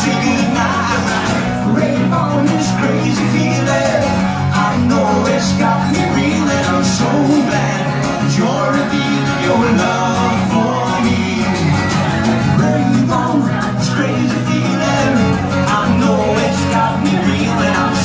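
Live music: a man singing lead over two guitars, an acoustic guitar and a second guitar, played together.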